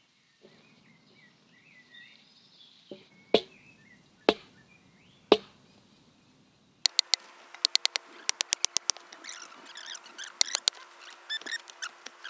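Birds chirping, with three sharp knocks about a second apart. About seven seconds in, a long-handled digging tool starts chopping into stony hillside soil, giving many quick, sharp clicks and knocks.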